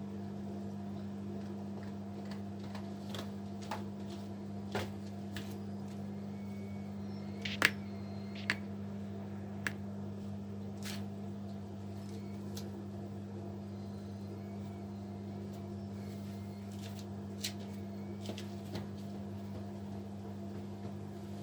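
Kunft washing machine running: a steady motor hum with scattered sharp clicks and knocks, the loudest about a third of the way in.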